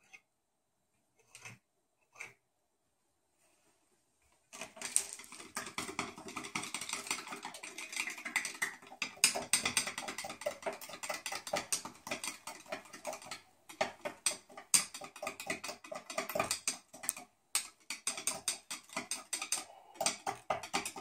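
Quiet at first with a few stray clicks. From about four and a half seconds in comes rapid, irregular clicking and scraping as a stirrer is worked round a small glass cup of liquid plastisol.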